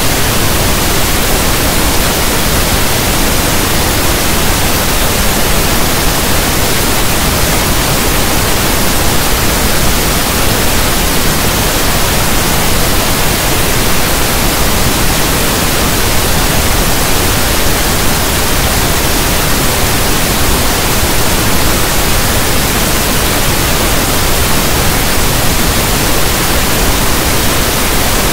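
Steady, unchanging pink noise, a generated hiss that sounds like static from a radio tuned between stations.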